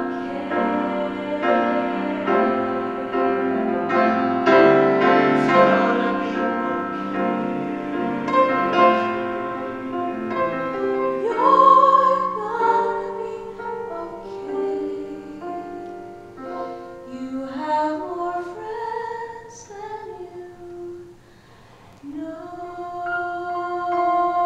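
Choral music with piano. A full choir sings layered sustained chords for about the first half, then the texture thins to a sparser, softer melodic line with a brief lull near the end before held notes return.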